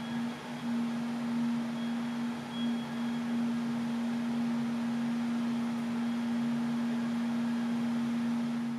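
Steady low electrical hum from shake-table test machinery, a single held tone over a constant hiss. The hiss is uneven for the first three seconds, then settles.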